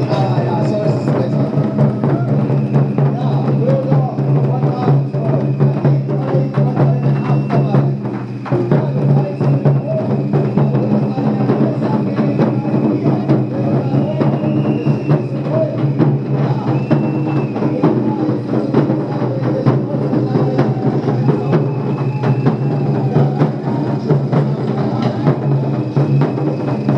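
Taiko drums played continuously, with dense, rapid strokes throughout.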